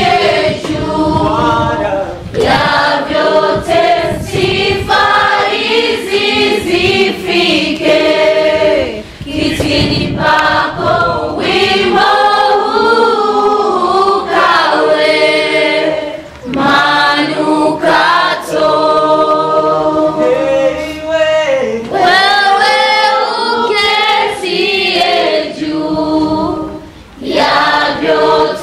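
Church congregation singing a worship song together, with women's voices leading.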